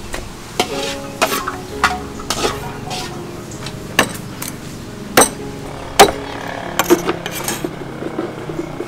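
Cleaver chopping fish pieces on a thick wooden chopping board: about a dozen sharp, irregular chops, with a short pause around three seconds in and the hardest strokes about five and six seconds in.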